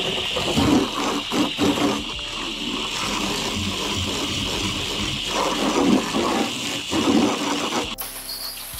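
Water running steadily from a hose, with uneven splashing.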